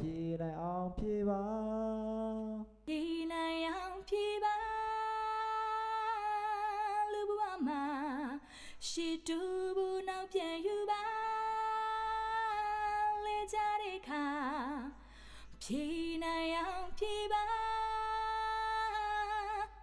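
A solo, unaccompanied sung vocal track played back in a mix: long held notes with vibrato, in phrases broken by short pauses. The voice is sent through Logic's PlatinumVerb reverb on an aux bus.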